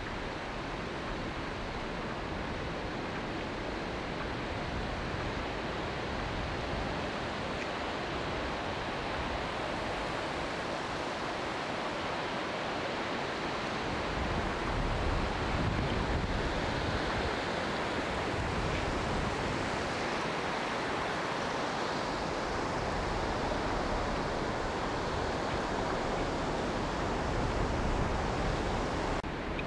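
Ocean surf washing onto a sandy beach, a steady rush, mixed with wind buffeting the microphone; the low wind rumble gets stronger about halfway through.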